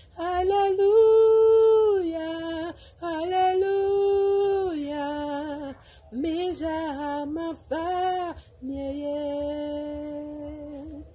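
A woman singing a Twi gospel song unaccompanied, in long held notes with short breaks for breath between phrases.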